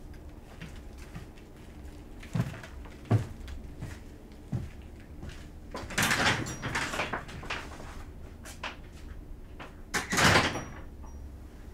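A door being handled: a few dull knocks, then two louder scraping rattles, about six and ten seconds in.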